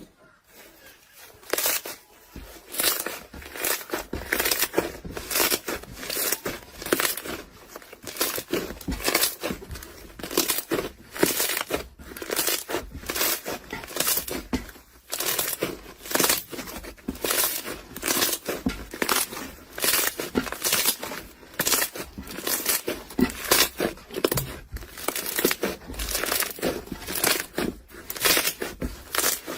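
Crunchy, crackling material being squeezed and crushed over and over, about two crunches a second, starting about a second and a half in.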